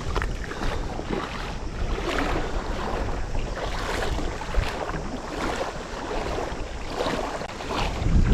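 River water rushing, with wind buffeting the microphone in low rumbles that grow stronger near the end.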